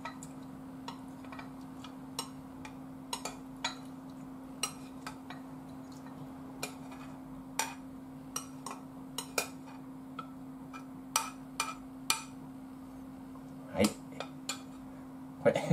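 Metal ladle tapping and scraping against a metal pan and a ceramic bowl as food is spooned out: a scattered series of light clinks and clicks, with a louder knock near the end. A steady low hum runs underneath.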